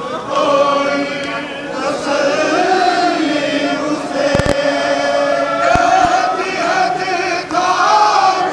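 Large crowd of men chanting together in a loud mourning lament, many voices holding long drawn-out notes, with a couple of brief thumps near the middle.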